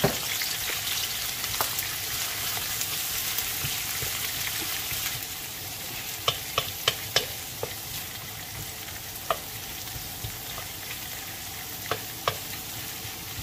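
Sliced red onions and garlic sizzling in hot oil in a metal wok, a steady hiss that eases slightly about halfway through. In the second half a wooden spoon stirs them, clicking and scraping against the pan a number of times.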